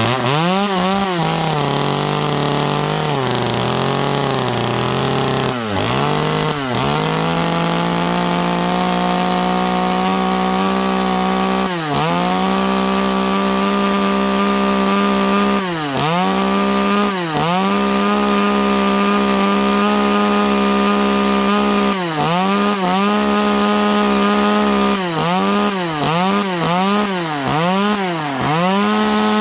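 TimberPro 25cc top-handle chainsaw's small two-stroke engine running at high revs. The revs waver unevenly for the first few seconds, then hold steady, with the throttle let off and squeezed again many times, in quick succession near the end.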